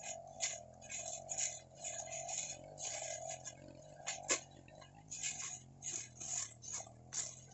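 Backpack brush cutter's engine running steadily while the cutting head swishes through grass in repeated hissing sweeps, about two a second. There is one sharp click about four seconds in, as the head strikes something hard.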